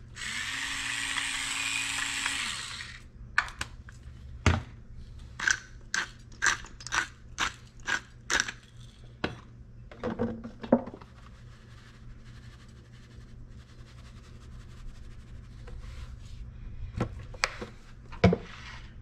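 Electric pepper mill grinding for about two and a half seconds, a steady motor hum under a gritty hiss. Then a run of sharp taps, about two a second, followed by a few duller knocks as seasoning is worked onto the fish.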